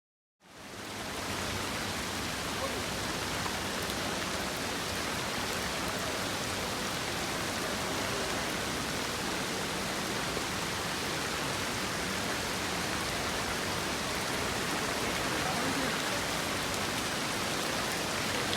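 Heavy rain pouring down, a dense, even hiss that starts about half a second in and holds steady.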